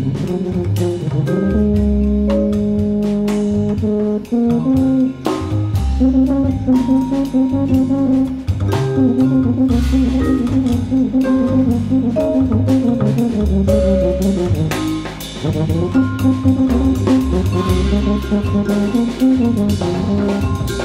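Jazz background music with a bass line, drums and held melody notes.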